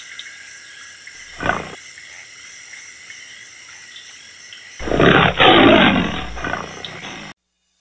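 A lion makes a brief call about a second and a half in, then a loud roar of about two and a half seconds that cuts off suddenly.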